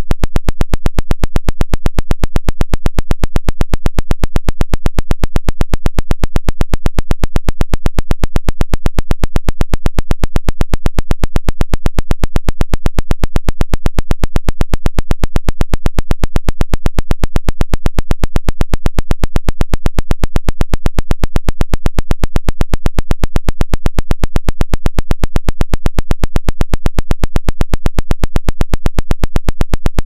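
Electronically generated 'woodpecker signal': a loud, unbroken train of sharp, evenly spaced noise pulses, many a second, in the manner of the Soviet over-the-horizon radar's tapping heard on shortwave.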